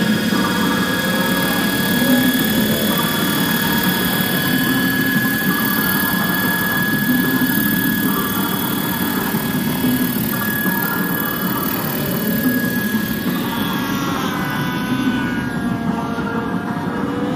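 Scale radio-controlled model helicopter flying, its drivetrain and rotor giving a steady high whine. Near the end the pitch bends up and down as the helicopter changes speed or passes by.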